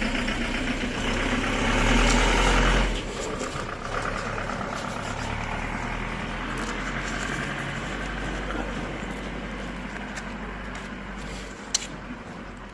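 A motor vehicle's engine running, loudest about two to three seconds in and then slowly fading away. A single sharp click near the end.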